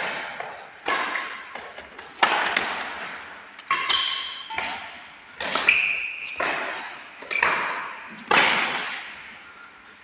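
Badminton rally: rackets strike the shuttlecock about eight times, roughly once every second or so, each hit a sharp crack that rings out in a large hall.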